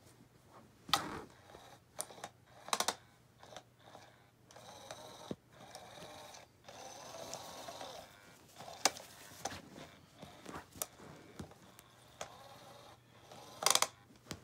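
Scattered clicks, knocks and fabric rustles from a SmartyKat Hot Pursuit cat toy as cats paw at its plastic base and nylon cover. In the middle there is a stretch of faint whirring from the toy's motor.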